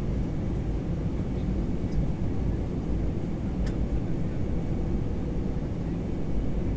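Steady low rumble of an Airbus A321 airliner heard inside the cabin, with a faint steady hum above it and a single brief click about three and a half seconds in.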